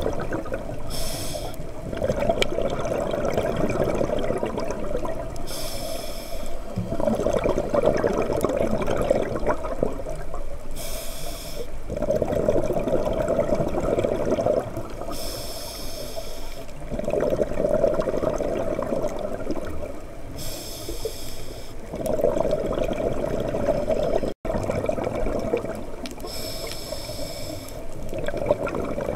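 Scuba diver breathing through a regulator underwater, about six breaths. Each breath is a short hiss on the inhale, followed by a few seconds of bubbling exhaust on the exhale.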